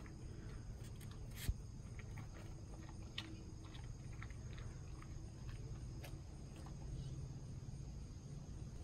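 Golden retriever picking thin wheat crackers off a concrete driveway and chewing them: scattered crisp crunches and clicks, the sharpest about one and a half seconds in.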